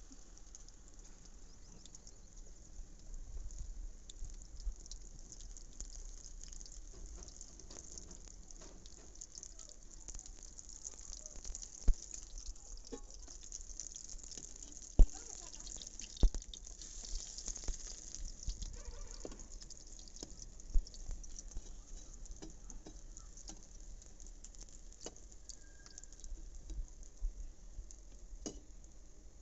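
Pakoras sizzling as they deep-fry in hot oil in an iron kadhai, a steady high hiss. A few sharp clicks stand out over it.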